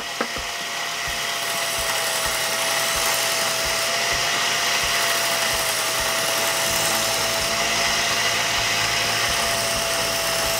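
A small benchtop belt sander runs with a steady whine while a fillet knife blade is honed against the moving belt, which has been dressed with buffing compound. A hiss from the blade on the belt builds over the first couple of seconds.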